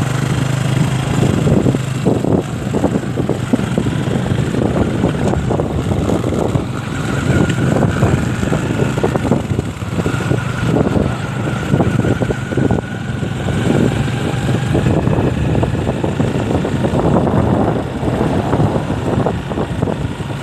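Motorcycle engine running steadily while riding along a road, with rough, fluctuating road noise.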